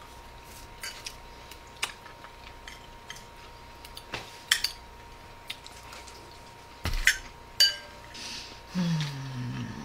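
Spoons clinking and scraping against bowls during a meal: scattered sharp clinks, the loudest a pair about seven seconds in, one with a short ring. A brief hummed voice near the end.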